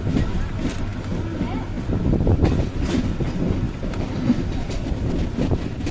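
Passenger train running on the rails: a steady low rumble with a few sharp clacks of wheels over the track.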